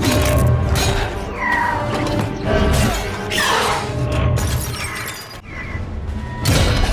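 Action-film battle soundtrack: music over crashes, smashing and shattering impacts, with a loud hit near the end.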